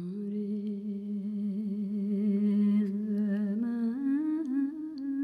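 A single voice humming long held notes, the pitch stepping up twice in the second half.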